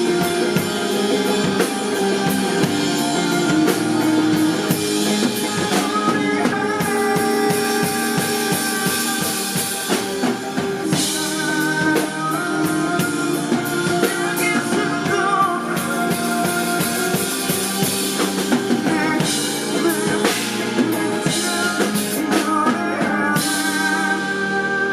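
Live band music: a full drum kit with bass drum and rimshots playing steadily under sustained pitched instruments. Near the end the drumming stops and only held tones ring on.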